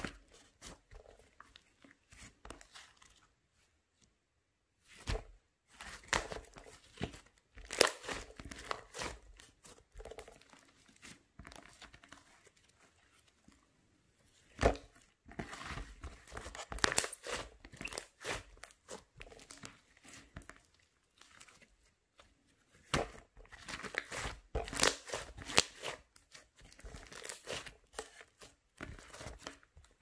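White slime being kneaded, pressed and stretched by hand, giving off dense sticky clicks and pops in spells of a few seconds with short near-silent pauses between them; the sharpest pops come about 8 and 15 seconds in.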